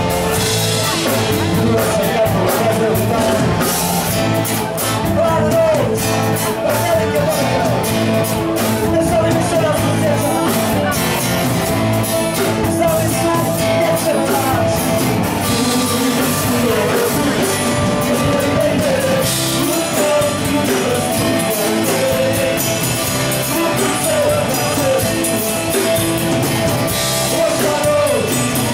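Live rock band playing: electric guitar, acoustic guitar and drum kit, with a man singing over them.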